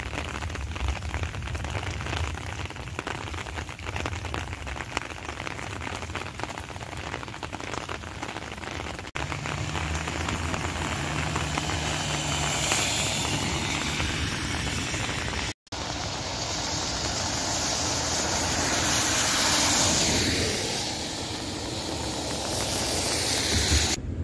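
Steady rain falling on a wet street. Twice, tyres hiss on wet pavement, swelling and fading as a car drives past: about halfway through with a low engine hum, and again in the last third.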